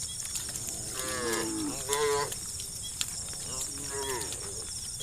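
Cows mooing: three short moos about a second apart, the first sliding down in pitch.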